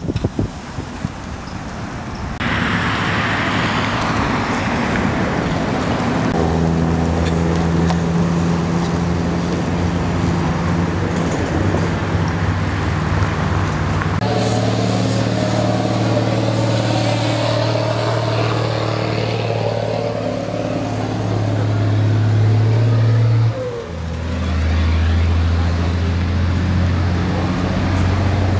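Road noise, then a steady low engine hum that shifts in pitch abruptly twice.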